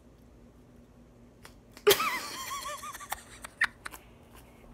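A girl giggling in a short, sudden burst about two seconds in, with a few small handling clicks afterwards.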